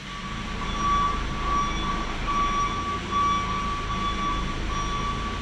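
Machinery in the electric car starting up and running: a steady low hum with a high-pitched whine over it that wavers in and out.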